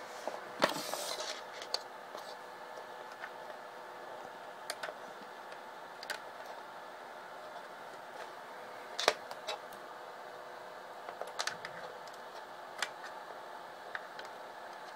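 Scattered clicks and knocks of plastic charger connectors and cable leads being handled, with a short rustle about a second in, over a steady faint hum.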